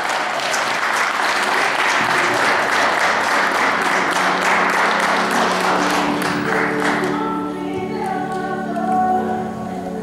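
Wedding guests applauding the newly married couple, with recessional music coming in beneath. The applause dies away about seven seconds in, leaving the music with long held notes.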